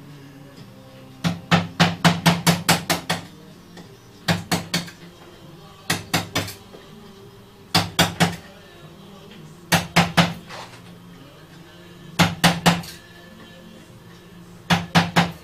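Wooden mallet knocking on a wooden music box's frame in quick bursts of three to eight knocks, a new burst about every two seconds.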